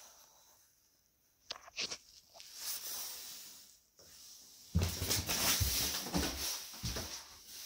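Handling noise and footsteps of someone moving about a small, bare room: a few sharp clicks about a second and a half in, some hiss, then a longer stretch of rustling and rumbling knocks from about the middle on.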